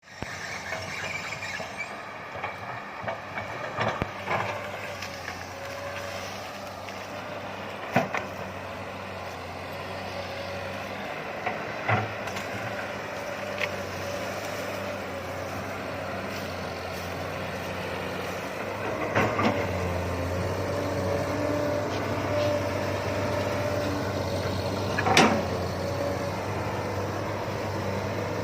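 Komatsu PC200 hydraulic excavator's diesel engine running steadily, with a few sharp knocks and clanks about 8, 12, 19 and 25 seconds in as it works brush and debris.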